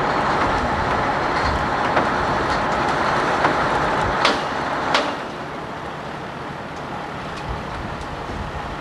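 Steady running noise of heavy equipment working at a railroad wreck, with two sharp knocks about four and five seconds in, after which the noise drops quieter.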